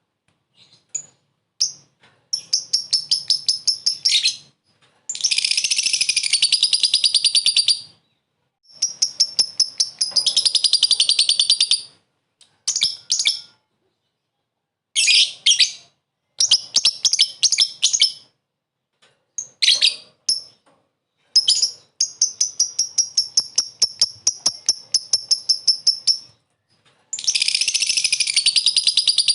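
Lovebird chattering in its ngekek song: bursts of fast, evenly repeated high notes, about ten to a dozen a second. Some bursts are short, others run on for several seconds, with brief pauses between them.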